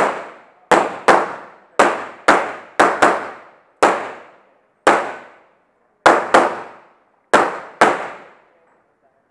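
Handgun fire during a practical shooting course of fire: about a dozen shots, several in quick pairs, each a sharp crack with a short ringing decay.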